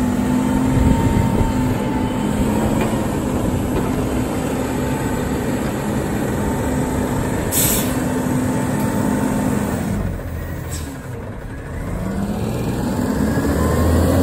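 Front-loader garbage truck's diesel engine held at raised revs with a steady whine while its hydraulic arms empty and lower a trash container, with two brief hisses of air partway through. Near the end the revs drop, then climb again as the truck pulls away.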